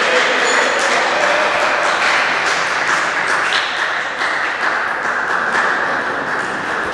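Spectators applauding in a sports hall after a table tennis point, a steady clapping noise.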